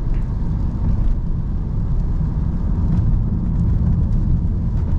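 Steady in-cabin driving noise of a Volkswagen Passat on a wet road: a constant low rumble of tyres and engine.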